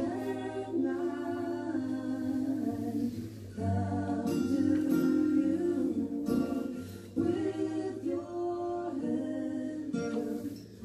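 Music: a song with voices singing in harmony over a held low note, in phrases of a second or two.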